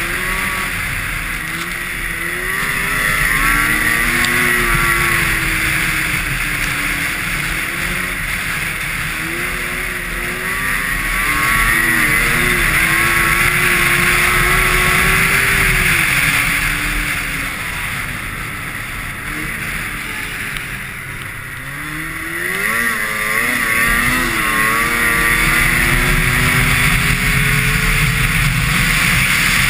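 Yamaha Nytro snowmobile's four-stroke three-cylinder engine running at speed, its pitch rising and falling with the throttle, over a loud rush of track and wind noise. About two-thirds of the way through the engine eases off, then climbs again as the sled accelerates.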